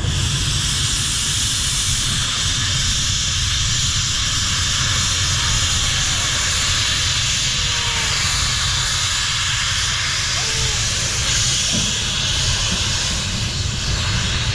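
Steam locomotive venting steam: a loud, steady hiss that starts abruptly and holds, over a low rumble.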